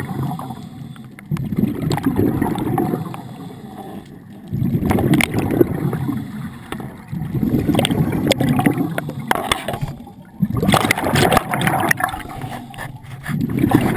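Scuba diver breathing through a regulator, heard underwater: bursts of exhaled bubbles gurgling and rumbling about every three seconds, with quieter inhale gaps between them.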